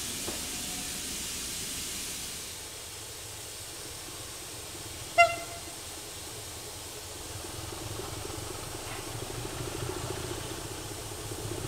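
Steam hissing from a locomotive fades out over the first two seconds. About five seconds in, a railway locomotive gives one short, sharp toot, the loudest sound. A low engine rumble then builds toward the end.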